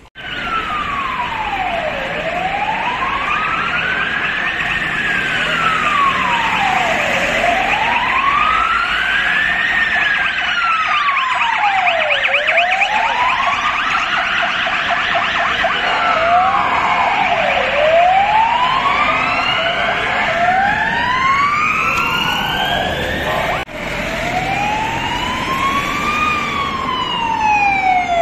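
Ambulance siren wailing, slowly rising and falling about every five seconds. Roughly two-thirds of the way in, a second siren with a faster, higher wail joins it, the police escort's. There is a brief break near the end, and then the sirens carry on.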